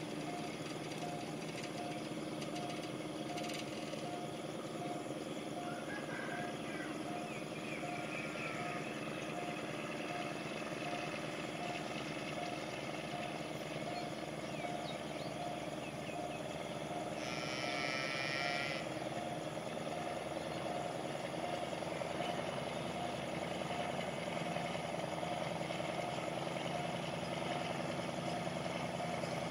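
Distant diesel-electric locomotive, an AHK with a Pielstick 16PA4V185VG engine, running as the train approaches: a low steady drone that grows a little louder in the second half. A pulsing warning tone from the level crossing repeats evenly throughout, and a short high call stands out about seventeen seconds in.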